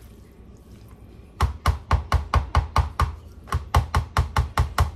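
A spoon knocking against a bowl as pasta salad is stirred, a quick even series of sharp knocks, about four a second, starting about a second and a half in.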